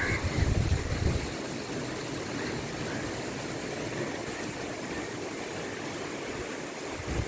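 Steady rushing of wind through coconut palms mixed with water, with wind buffeting the microphone in gusts during the first second and a faint bird chirp near the start.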